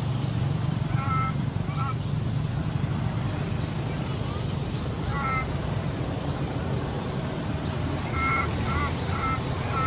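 Young macaque giving short, high-pitched calls: one about a second in, another around five seconds, and several in quick succession near the end, over a steady low rumble.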